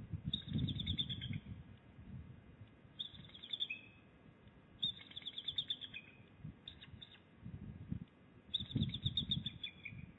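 Bald eagles calling off-camera: about five bursts of rapid, high, chattering notes, each trailing off slightly lower, every two to three seconds. A low rumble sits underneath.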